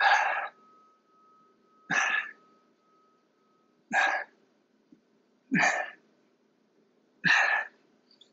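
A man breathing out hard in forceful puffs, five times, about every two seconds, as he strains through a tiring exercise.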